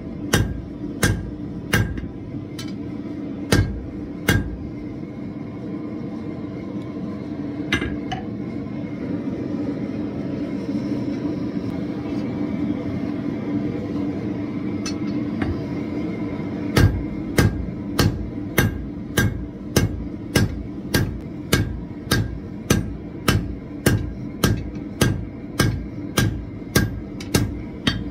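Hand hammer striking a red-hot steel bar on an anvil: a few blows at the start, a long pause, then an even run of about two blows a second through the last eleven seconds or so.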